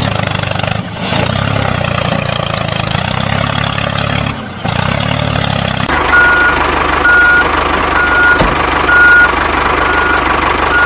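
A heavy vehicle's engine running steadily, then from about six seconds in a reversing alarm starts beeping at an even pace, about one and a half beeps a second, over the engine.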